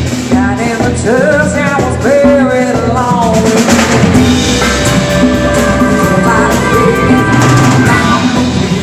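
A live band playing loud music driven by a full drum kit, with bass drum, snare and rimshots, under a melody line that slides in pitch.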